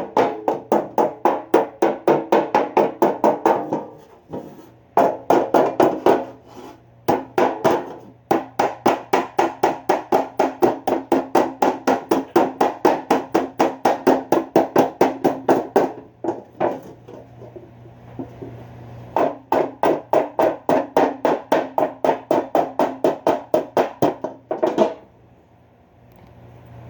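A hammer beating rapidly on a metal cooking pan, about four ringing strikes a second, in runs of several seconds with short pauses, as the pan is repaired.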